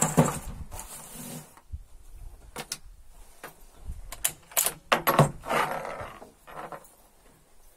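Sharp metallic clicks and knocks of a Los-145 bolt-action rifle being loaded: cartridges handled at the bench and the bolt worked. A cluster of clicks comes about four and a half to five and a half seconds in, followed by a short rasping slide.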